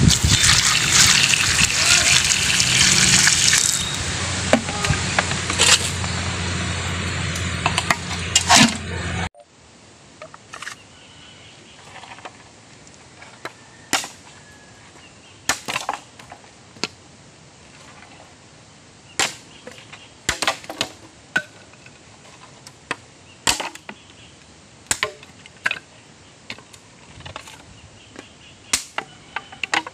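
Water poured from a plastic dipper into a metal pot of husked corn, splashing for about nine seconds. Then, after a sudden cut, a bolo knife chopping wood in sharp, irregular strokes, roughly one every second or two.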